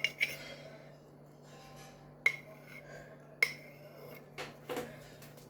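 A spoon clinking against a mug while mixing mug-cake batter: a few sharp, briefly ringing clinks about a second apart, then softer knocks near the end.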